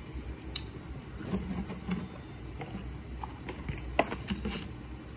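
Hands handling a small plastic hardware wallet and its cardboard and plastic-wrapped packaging: scattered light clicks and taps with soft rustling, over a faint low hum.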